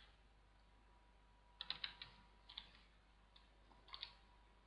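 Faint typing on a computer keyboard: a few keystrokes at a time in small clusters, as a word is typed.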